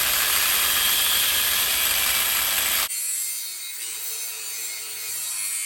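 Power tool grinding metal: a loud, steady abrasive hiss. About three seconds in it cuts to a quieter hiss with a faint hum.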